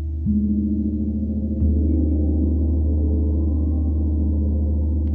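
32-inch Sri Yantra gong played with a soft, one-pound-headed Ollihess L460 mallet, struck twice, about a quarter second and a second and a half in, with no audible contact. Each stroke swells the deep, steady ringing: the gentle bloom a soft, heavy mallet draws from the gong.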